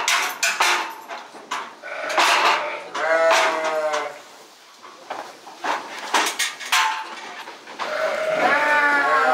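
Sheep bleating twice, once about three seconds in and again near the end, with sharp clanks and knocks from the metal weighing crate as the sheep is handled into it.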